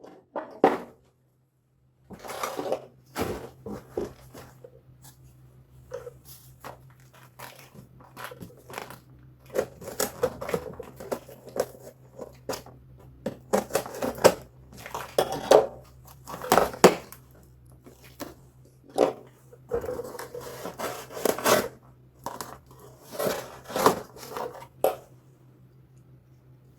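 Packaging being opened by hand: tearing, crinkling and rustling of cardboard and wrapping, with irregular clicks and knocks as the box and its contents are handled.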